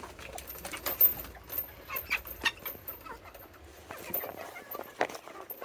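Serama bantam chickens clucking in short, high calls among a scatter of quick taps, as they peck at treats.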